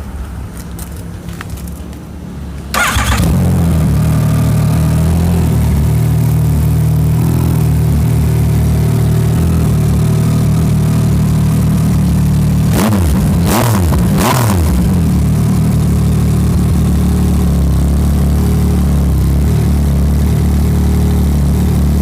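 Yamaha MT-09's three-cylinder engine starting up about three seconds in and settling into a steady idle. About halfway through it is revved three times in quick succession, then drops back to idle.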